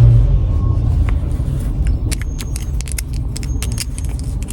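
Low rumble of a car's running engine, with keys jangling and clinking in quick, irregular taps from about halfway through.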